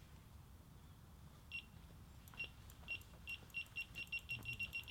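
Electronic carp bite alarm beeping, starting about a second and a half in with single high beeps that come faster and faster until they nearly run together: a fish taking line on a run.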